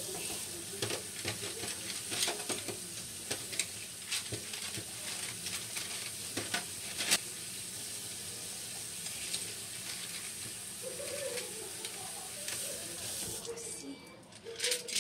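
Kitchen tap running into a stainless steel sink while a bundle of chopsticks is rinsed under it, the sticks clicking and clattering against each other. The water stops near the end, leaving a few louder clacks of the chopsticks.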